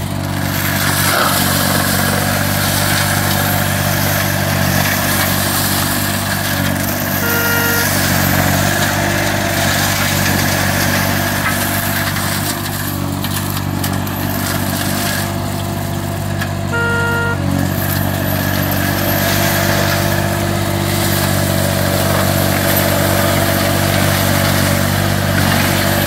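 Green Climber LV600 remote-controlled slope mower's Kohler engine running steadily under load while its flail mulching head shreds dense brush. A short electronic beep sounds about every nine to ten seconds, near 7 and 17 seconds in and again at the end.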